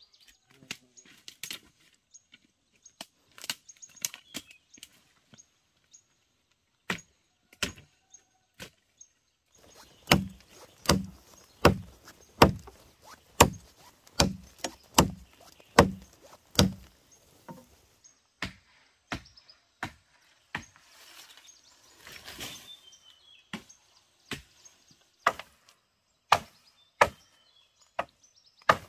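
Hand-tool blows on bamboo. Scattered single knocks give way to a quick run of about a dozen heavy strikes, roughly two a second, and then slower single knocks resume. A short scraping rustle comes about two-thirds of the way through.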